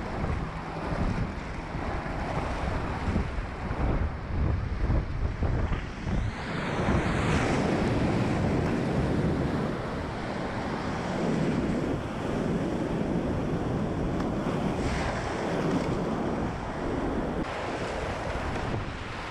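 High-flowing whitewater rapids rushing and churning around a kayak, with a steady heavy rumble of the river; spray and wind buffet the microphone. The river is running high, near 4000 cfs.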